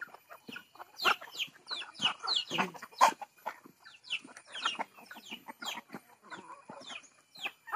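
A flock of free-ranging chickens clucking and calling, many short falling calls overlapping one another, with a single sharp click about three seconds in.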